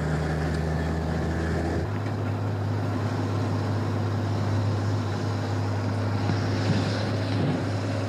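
A fire engine's motor running steadily with wind noise; its low hum shifts to a new steady pitch about two seconds in. No siren wail is heard.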